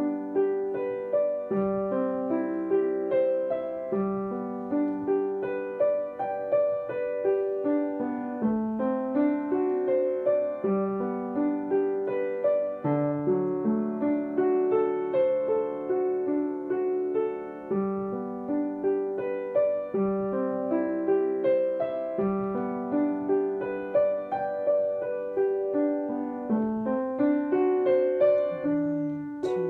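Piano playing a slow piece in three-time, in G major: rolling broken-chord arpeggios, some crossing hand over hand, each note ringing on under the held sustain pedal.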